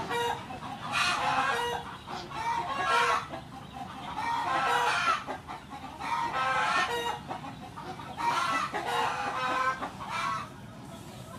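Rooster calling repeatedly: a series of about seven short calls, each under a second, stopping shortly before the end.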